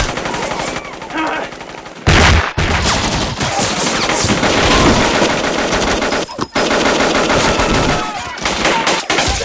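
Automatic rifle fire in long rapid bursts, loudest from about two seconds in, with a short break about six and a half seconds in.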